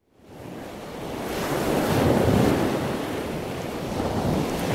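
Ocean surf: the rush of waves fades in from silence, swells over the first second and a half, then keeps surging and easing.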